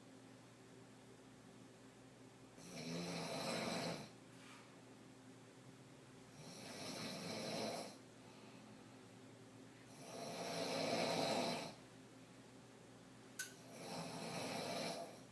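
A woman sleeping on her back, snoring hard: four snores about four seconds apart, each lasting one and a half to two seconds, the third the loudest. There is a brief sharp click just before the last snore.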